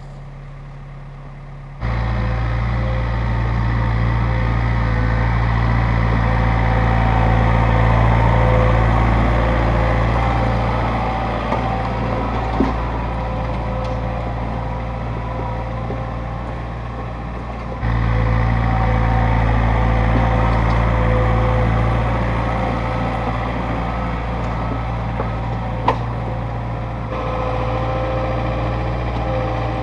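John Deere 110 backhoe's diesel engine running steadily while it pulls a land plane, with a few faint knocks. The sound jumps suddenly in level a few times.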